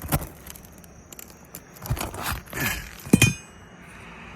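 A metal tool clinking and scraping against roofing nails as they are pried loose from asphalt shingles, in a few separate strikes; the loudest, a little after three seconds in, rings briefly.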